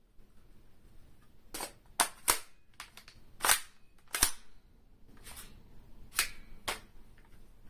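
Sharp mechanical clicks and clacks of an airsoft gun being handled through a reload, about nine in an uneven run over some five seconds.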